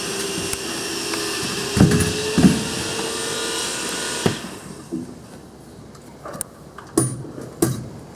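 A power tool running steadily, cutting off abruptly about four seconds in, followed by a few sharp knocks.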